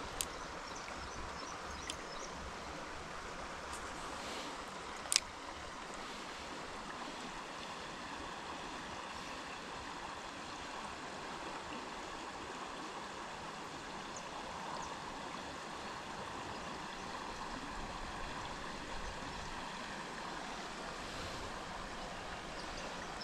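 River water flowing steadily, an even running-water noise throughout, with a few faint clicks near the start and one sharp click about five seconds in.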